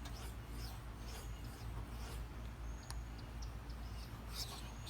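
An S30V knife edge scraping in strokes across a Shapton Pro 5000-grit whetstone, with a few brief high-pitched squeals, the stone "screaming": a sign of the sharpening angle held too obtuse.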